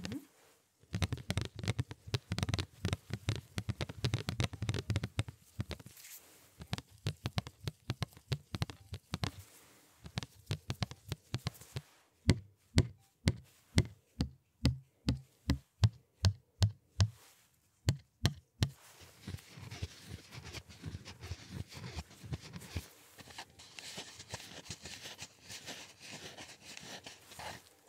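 Gloved fingers tapping and touching close to the microphone: quick scattered taps, then a run of louder, evenly spaced knocks, about three a second for some six seconds around the middle, then softer rubbing toward the end.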